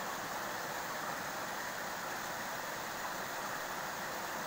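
Steady rush of water pouring through the outlet openings of a small weir into the channel below, an even noise that does not change.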